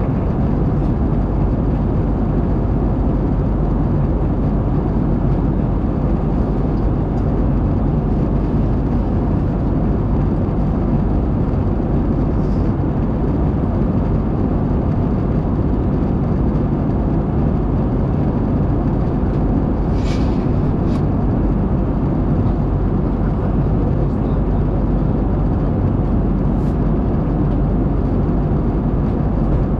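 Steady cabin noise inside an Airbus A220 in flight, the rush of airflow and its Pratt & Whitney geared turbofan engines, heavy at the low end and unchanging throughout. A brief click sounds about two-thirds of the way through.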